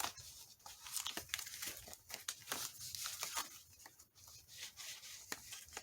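Faint rustling and crinkling of paper envelopes being handled, with scattered small clicks and taps.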